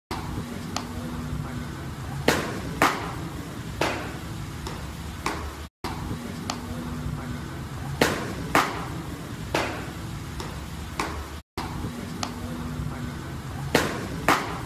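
Baseballs smacking into catchers' leather mitts: two sharp pops about half a second apart, with a few lighter clicks, over steady background noise. The same sequence comes three times, with a brief dropout to silence between each.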